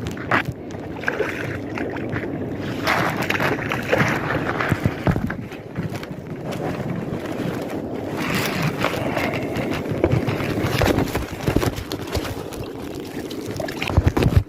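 Wind buffeting the microphone, with sea water sloshing and splashing and scattered knocks.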